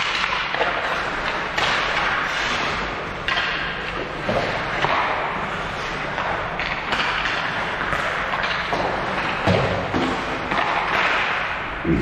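Thuds and knocks from game play over a steady noisy background that swells and fades, with sharper knocks near the end.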